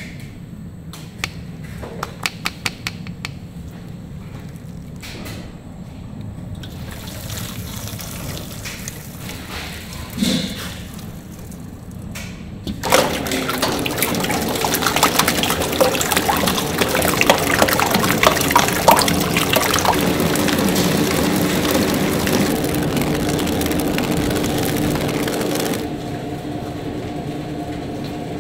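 A steady machine hum with sharp clicks, then a loud rushing, liquid-like noise that starts abruptly about halfway through over steady mechanical tones and eases off near the end.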